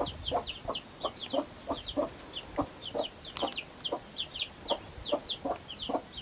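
Broody mother hen clucking to her day-old chicks in a steady run of short low clucks, about three a second. The chicks peep constantly over it with short, high cheeps that fall in pitch, often in quick pairs.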